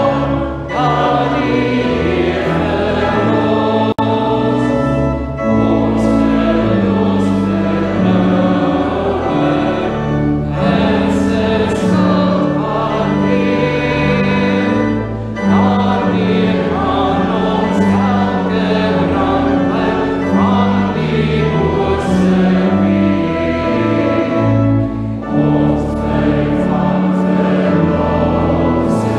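A church congregation singing an Afrikaans hymn together in slow, held notes.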